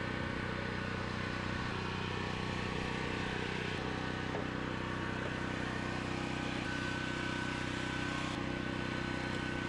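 Steady engine drone running evenly throughout, with a constant hum and a thin steady whine above it.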